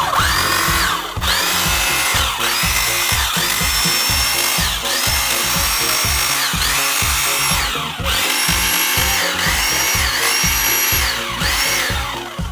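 Repaired small electric demolition hammer test-run in short bursts: the motor whines up to speed, runs, and winds down as the trigger is pulled and released, about ten times over, running normally again after the repair.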